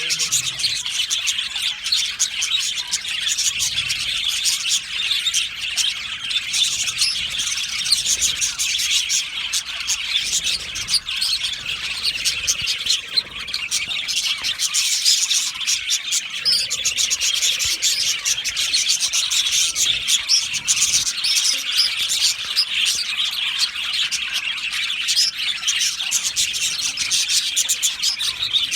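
A colony of budgerigars in an aviary chirping and chattering all together, a dense, continuous flock sound of many overlapping high chirps.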